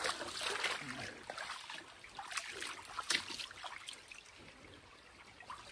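Shallow creek water trickling and babbling, with many small irregular splashes, growing fainter over the last couple of seconds.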